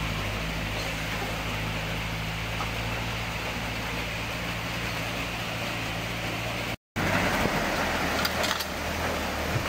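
A motor running steadily with a low hum over an even hiss. About seven seconds in, the sound cuts out for an instant and comes back without the hum, leaving the hiss and a few faint clicks.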